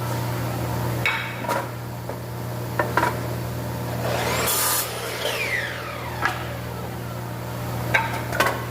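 Woodworking shop machinery humming steadily, with scattered knocks and clatters of wood and tools being handled. A short hiss comes about four and a half seconds in, and a falling whine follows.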